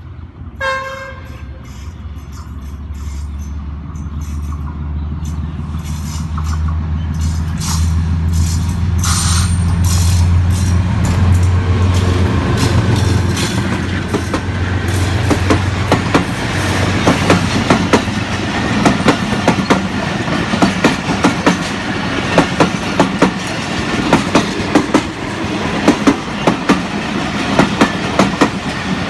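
Pakistan Railways GEU-20 (GE U20C) diesel-electric locomotive gives a short horn blast about a second in, then its diesel engine drone builds as it comes past. From about halfway on, the express's coaches run by with a steady clickety-clack of wheels over rail joints.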